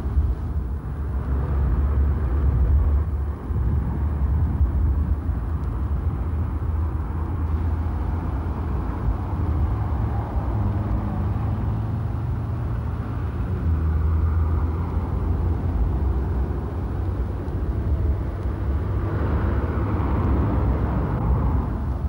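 Steady low rumble of a motor vehicle driving on the road, with a rise in hiss for a couple of seconds near the end.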